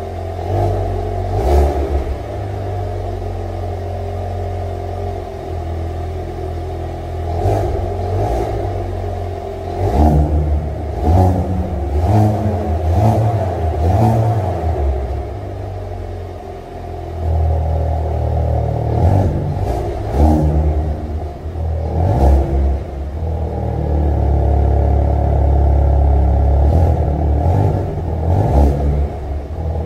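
Hyundai Kona N's 2.0-litre turbocharged four-cylinder running with its exhaust blipped repeatedly, punctuated by a dozen or so sharp pops, echoing off the concrete of an underground garage.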